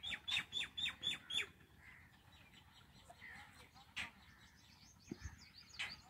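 Indian roller chicks calling: a quick run of six sharp calls in the first second and a half, then scattered fainter calls, with single louder calls about four seconds in and near the end.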